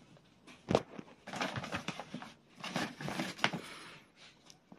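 Packaged firecrackers being handled: rustling with small clicks, and one sharp knock just under a second in.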